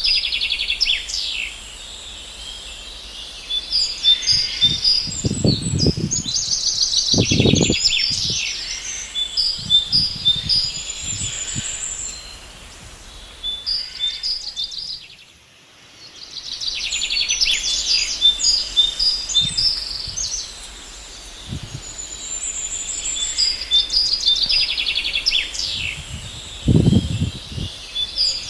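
Small birds chirping and twittering in quick repeated trills, with groups of calls coming and going and a brief lull about halfway through. A few short low thuds or rumbles sound under the birdsong, twice early on and once near the end.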